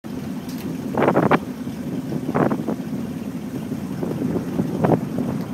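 Steady low rumble aboard a lobster boat, with wind buffeting the microphone and a few short louder sounds about one, two and a half and five seconds in.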